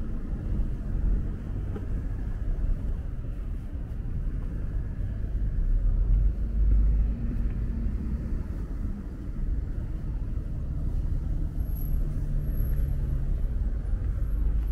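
Steady low rumble of vehicles, swelling about six seconds in, with a faint high whistle coming and going near the end.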